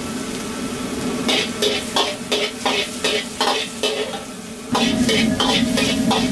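Metal ladle scraping and tapping against a carbon-steel wok while chilli paste fries in hot oil with a steady sizzle. The ladle strokes come in a quick series of about three a second from about a second in, and the frying gets louder shortly before the end.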